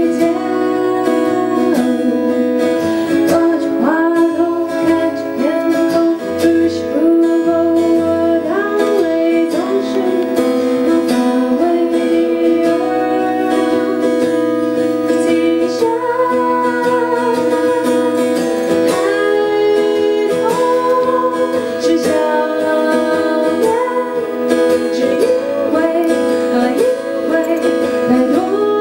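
A woman singing a song live, accompanied by a man playing an acoustic guitar.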